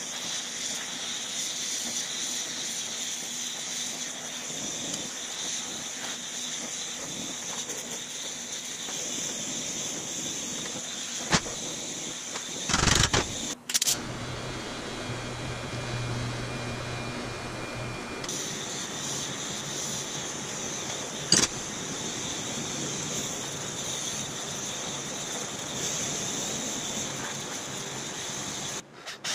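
TIG welding arc hissing steadily on steel, with a few sharp clicks and a short louder burst a little before halfway.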